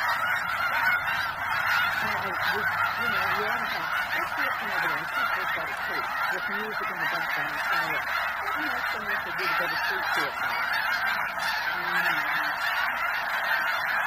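A large flock of snow geese calling all at once: a dense, continuous chorus of many overlapping high honks with no break.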